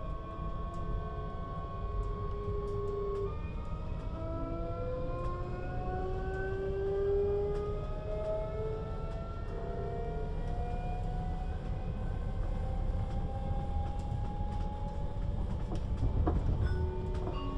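Siemens Desiro HC electric multiple unit pulling away, heard from inside the passenger car. A steady tone holds for the first three seconds, then the traction inverters and motors whine in several tones that climb slowly in pitch as the train gathers speed, over a low running rumble.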